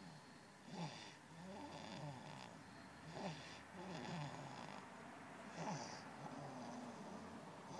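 Snoring: a steady run of breaths whose pitch slides up and down, with louder catches about a second in, past three seconds and near six seconds.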